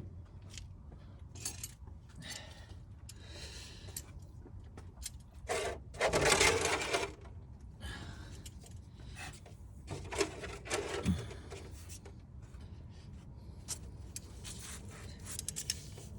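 Scattered small metallic clicks and scrapes of hand tools working at the pinch-type hose clips on a coolant pipe, with a longer, louder scrape about six seconds in.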